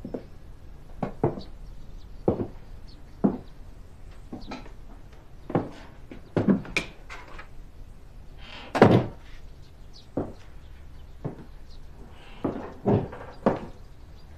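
Footsteps on a hard floor, roughly one step a second, and a front door shutting with a thud about nine seconds in.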